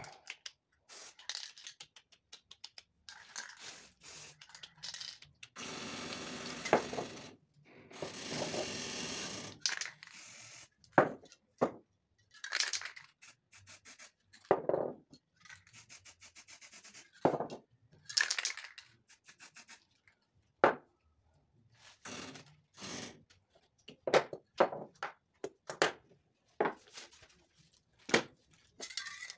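Aerosol spray-paint cans hissing in short spurts and a couple of longer sprays of a second or two, between sharp clicks and knocks of cans and stencils being handled.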